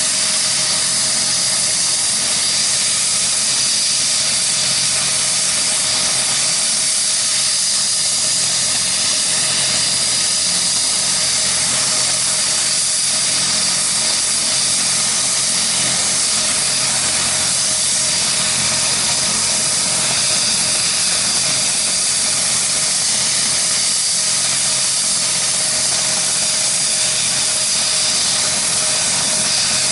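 Ansat helicopter's twin turboshaft engines running on the ground with the main rotor turning: a steady turbine whine over a loud hiss and a low hum, unchanging throughout.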